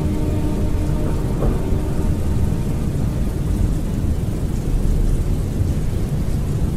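Rain and thunder ambience: a steady, heavy low rumble of rain with rolling thunder, left alone once the last sustained notes of the previous music fade out about a second or two in.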